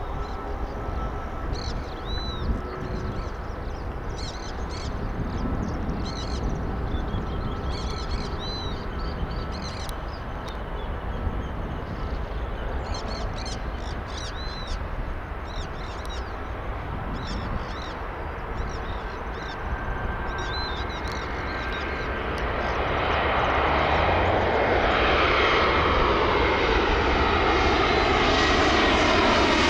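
Small birds chirping over a steady low rumble. About two-thirds of the way in, an airplane's engine noise swells up and grows steadily louder, with a sweeping change in pitch as it comes overhead.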